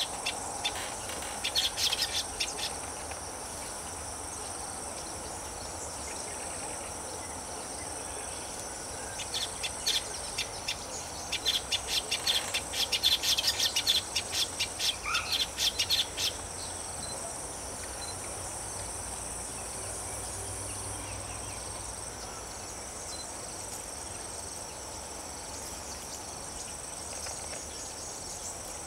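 Steady high drone of insects in a wetland. Over it come bursts of rapid chirping, briefly about two seconds in and again from about nine to sixteen seconds.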